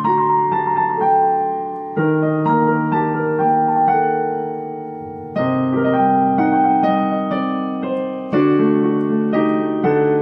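Background piano music: slow chords struck every two to three seconds with a melody of single notes above, each chord ringing and fading before the next.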